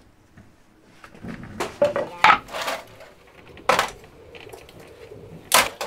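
Clatter and knocks of metal and wood being handled and set down on a table: a wooden board on old metal roller skates and a vintage oscilloscope. There is a cluster of sharp knocks about two seconds in, then single loud knocks near four seconds and near the end.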